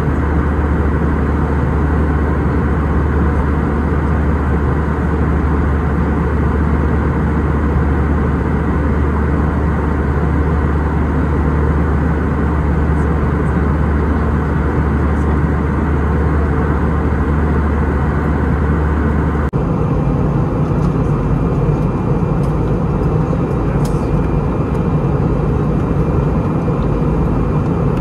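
Steady cabin noise of an Airbus A320 airliner in cruise: jet engine and airflow rush heard from a window seat. About two-thirds of the way through it changes abruptly, as the deep low hum drops away and a higher, thinner steady noise takes over.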